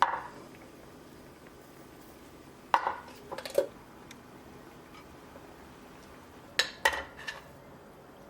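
Dishes and cutlery clinking in the kitchen: one sharp clack at the start, then two short clusters of knocks and clinks, about three seconds in and about seven seconds in.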